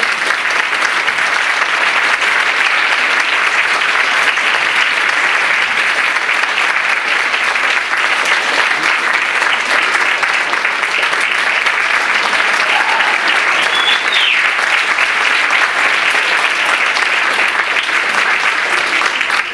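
Audience applauding, a dense steady clapping that starts at once and holds throughout.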